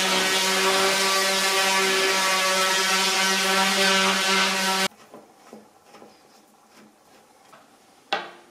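Electric random orbit sander with 80-grit paper running steadily on a painted wooden shutter, taking off loose paint; it cuts off abruptly about five seconds in. After that, faint ticks and a sharp click near the end as a screwdriver works on a metal hinge bracket.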